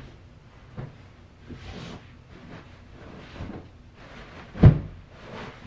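Pillows being handled and tossed on a bed: soft fabric swishes and rustles every second or so, with one louder dull thump near the end.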